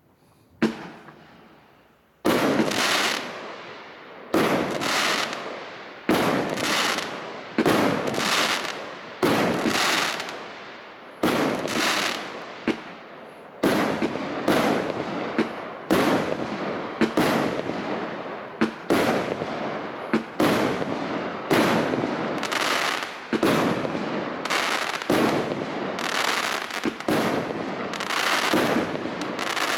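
A 36-shot, 1-inch fireworks cake (TKB225B) firing its shells one after another, roughly one shot a second, with each launch followed by the shell bursting and crackling out in the air. A single shot comes about half a second in, then a short gap, and the shots follow steadily from about two seconds in.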